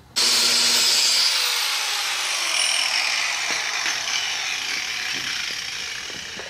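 Power grinder grinding on steel, cutting in abruptly and then slowly getting quieter, with a thin whine that drops a little in pitch about a second in; the work is grinding off the rivets of a worn upper ball joint on a pickup's front suspension.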